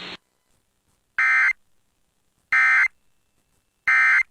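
Emergency Alert System end-of-message (EOM) data tones: three identical short buzzy bursts of digital data about 1.3 seconds apart, marking the end of the alert. A steady hiss cuts off just after the start.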